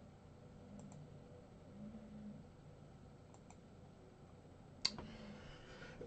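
Faint computer mouse clicks: two quick double clicks in the first half and one louder single click near the end.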